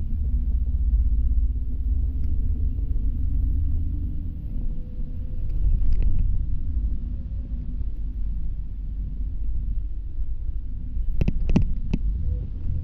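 Low, steady rumble of a city bus riding along, heard from inside through the camera at the window, with a faint whine that rises slowly in the middle. Three or four sharp clicks or knocks in quick succession near the end.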